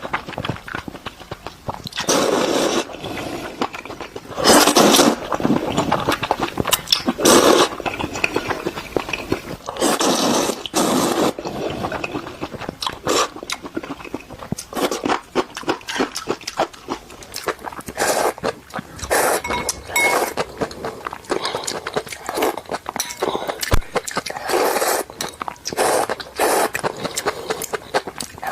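A person eating Korean-style Indomie instant noodles up close: several louder slurps, each about half a second to a second long, between many quick wet chewing clicks.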